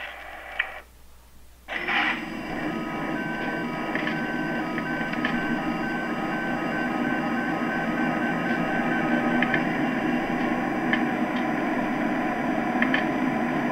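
Lionel O-gauge ES44 diesel locomotive's onboard sound system playing its start-up sequence. After a short pause the simulated diesel engine starts up sharply about two seconds in and runs on at a steady idle. A two-tone beeping sounds over it, the beeps quickening and then stopping in the middle, with a few light clicks.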